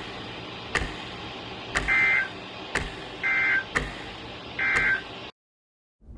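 Three short warbling data bursts from a NOAA Weather Radio broadcast: the EAS/SAME end-of-message code that closes the weekly test. A sharp click repeats about once a second underneath, and the recording cuts off suddenly near the end.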